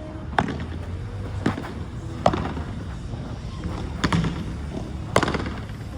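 A padel rally: about five sharp ball hits, roughly a second apart, from rackets striking the ball and the ball bouncing. A steady low rumble of strong wind on the microphone runs underneath.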